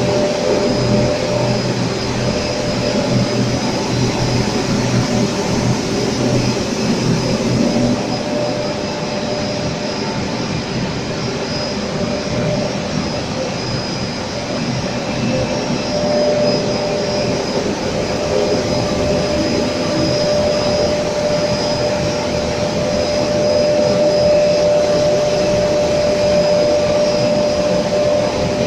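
PP tape extrusion line running: steady, loud machine noise from its motors and rollers, with a held mid-pitched hum and a faint high whine through it. The hum grows stronger a little past halfway.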